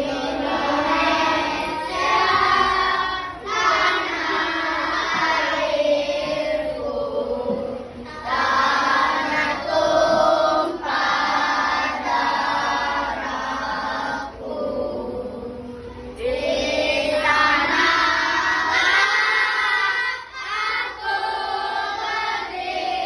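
A group of children singing together, in sung phrases separated by short breaks.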